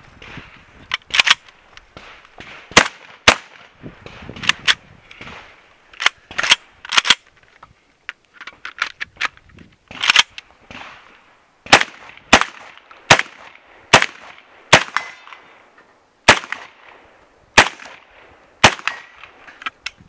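Semi-automatic magazine-fed 12-gauge shotgun firing about twenty shots at close range. The shots come sometimes as quick pairs and sometimes singly, about a second apart, with softer noise between them.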